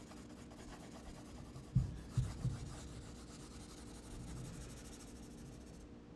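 Graphite pencil scratching across sulphite drawing paper in repeated shading strokes, building up a cast shadow. Three dull thumps about two seconds in.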